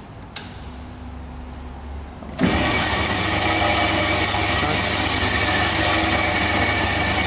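Cormak G5025 metal-cutting band saw switched on: after a single click, its motor and blade drive start suddenly about two and a half seconds in and run with a loud, steady whine.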